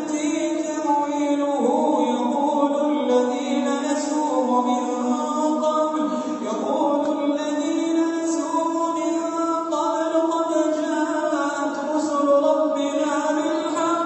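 Quran recitation chanted in a melodic, drawn-out style by a single voice, holding long notes that glide between pitches.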